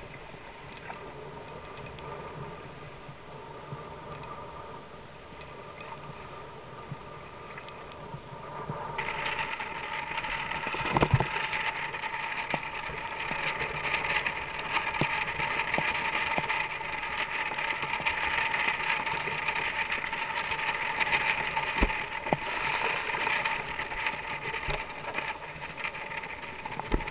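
Wind and water rushing past a small sailing kayak in choppy water, turning louder about a third of the way in as the boat heads up close hauled. A few sharp thumps of chop striking the hull, the strongest about eleven seconds in.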